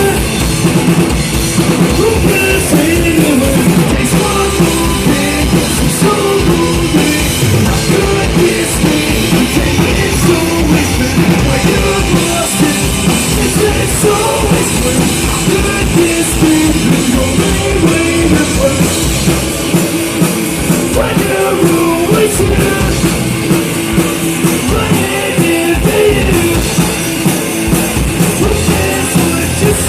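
Rock band playing loud and live, with a drum kit and a singer.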